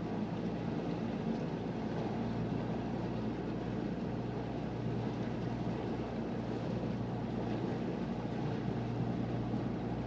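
A boat's engine running steadily under way, a low even drone, with the rush of water churned up past the hull.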